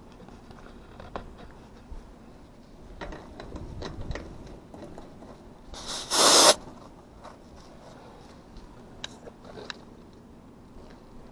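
A short, loud burst of refrigerant hissing about six seconds in, as an HVAC gauge hose is connected to a service port to check pressures, amid small clicks and handling noises.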